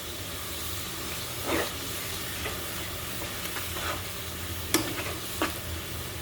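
Ground spices and onions sizzling in oil in a cooking pan, with a spatula stirring and scraping against the pan a few times.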